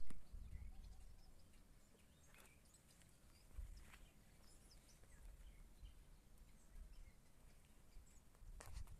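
Outdoor ambience: a thump right at the start, then gusty low wind rumble on the microphone with a few sharp clicks and faint bird chirps.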